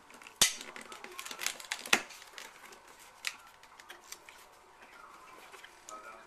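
Cardboard shipping box being handled and opened, likely with scissors: a sharp knock about half a second in and another near two seconds, then scattered light clicks and rustling.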